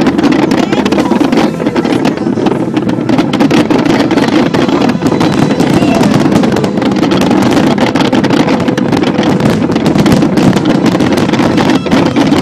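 A fireworks display going off without a break: dense, rapid crackling and popping bangs, one on top of another, over a steady low din.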